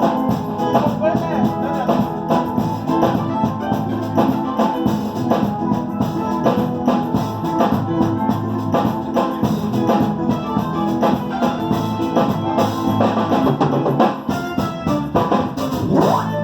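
Music with a steady drum beat, dense and loud throughout.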